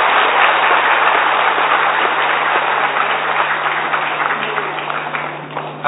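Audience applauding, a dense clatter of many hands that tapers off near the end, over a steady low electrical hum from the sound system.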